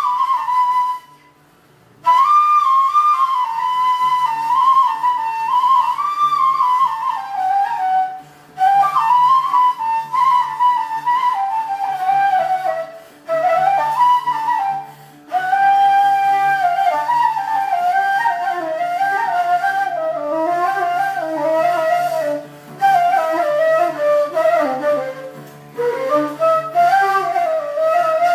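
A ney, the end-blown reed flute, plays a slow, ornamented melody that wavers up and down and breaks off briefly several times. It is accompanied by a softer oud underneath.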